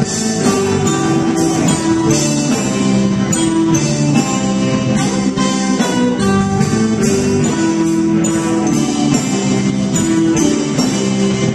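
Live rock band playing loudly without vocals: electric guitars over a drum kit with cymbals.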